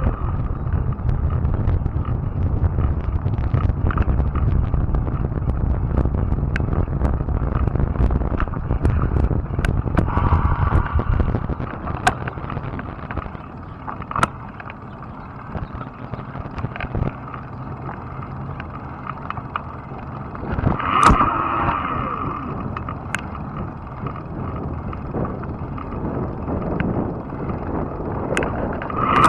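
Fat-tire electric bike riding on asphalt: steady tyre and wind rumble, strong for the first ten seconds or so and then quieter, with scattered sharp clicks and rattles from the bike.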